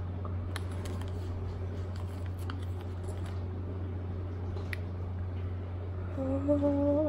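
A wet sheet face mask being handled and peeled open by hand: faint soft squishing and crinkling over a steady low hum. Near the end a woman's drawn-out groan of disgust begins.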